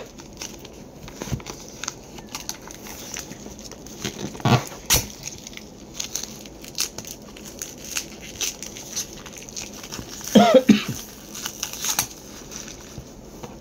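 Wrapping and plastic film around books being torn open and crinkled by hand, picked at with fingernails rather than scissors: an irregular run of crackles and rustles, busiest about four and a half seconds in and again near ten seconds.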